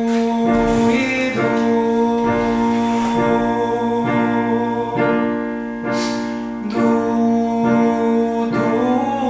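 A male student singing a vocal exercise on the syllable 'du' in long held notes over a piano accompaniment, breathing between the phrases.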